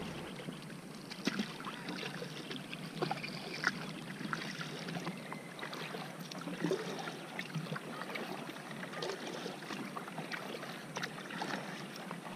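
Kayak paddle working in calm water: small, irregular splashes and drips from the blades.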